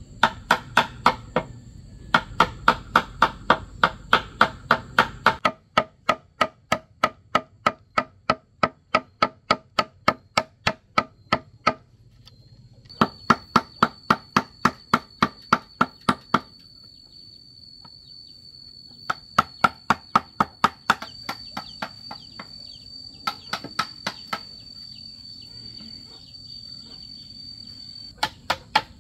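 Wooden mallet striking the back of a knife blade to cut into green bamboo: runs of quick, sharp knocks, about three a second, broken by short pauses.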